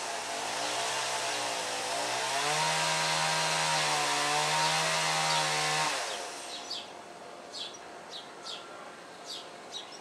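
A motorized power tool running, its pitch dipping and then climbing as the load changes, before it cuts off about six seconds in. Small birds chirp in short calls over the last few seconds.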